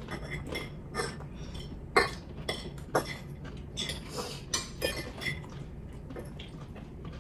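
Metal forks clinking and scraping against ceramic dinner plates while eating, in scattered light clinks a second or so apart.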